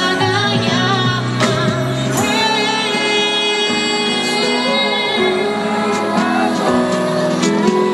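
A woman singing a pop song live over backing music, holding long notes through the middle.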